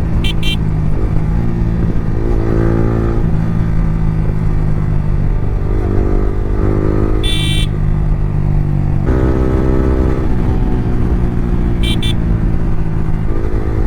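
Yamaha R15 V3's single-cylinder engine through an Akrapovic R9 exhaust with the dB killer removed, under way and pulling up through the gears: the pitch climbs, then drops at each shift, about three times. Three brief high-pitched beeps cut in near the start, about midway and near the end.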